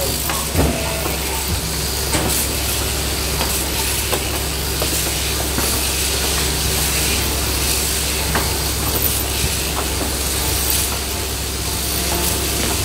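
Sheep-shearing handpieces on overhead drive running steadily through fleece: a steady hiss over a constant low hum, with a few faint clicks.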